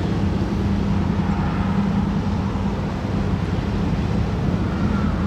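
Lake freighter Mesabi Miner's diesel engines running: a steady low drone with a deep hum.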